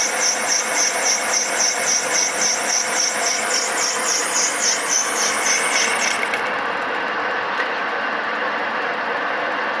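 Lathe turning hard nylon with a high-speed-steel (HSS) cutting tool. The cut gives a high-pitched whine that pulses about three times a second and stops about six seconds in, leaving the steady running noise of the machine.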